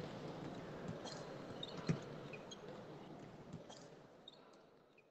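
Faint sports-hall background noise with a few dull thumps, the loudest about two seconds in, and some small high squeaks. It fades out near the end.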